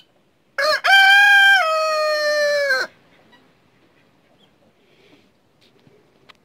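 Rooster crowing once, loud: a short first note, then a held note that steps down into a longer, slowly falling one, about two seconds in all.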